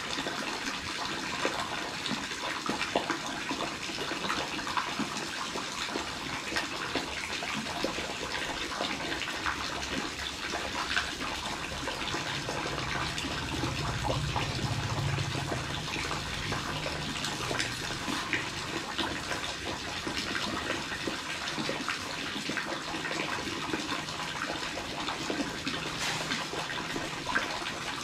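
Running water: a steady rush with many small splashes.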